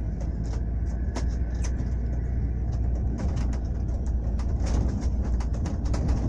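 Steady low rumble of a moving vehicle's engine and road noise, with many short clicks and rattles, more of them after about three seconds.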